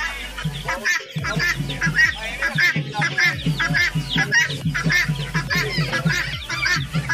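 Caged poultry and other birds calling all at once: a dense, continuous chorus of many short, overlapping calls.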